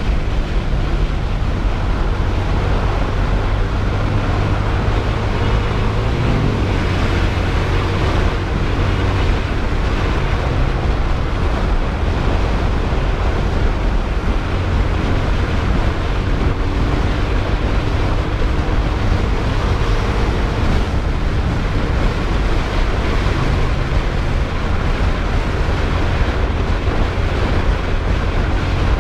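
Wind rushing over the microphone of a moving Modenas GT128 motorcycle, with its engine running steadily underneath; the engine note changes pitch about six seconds in.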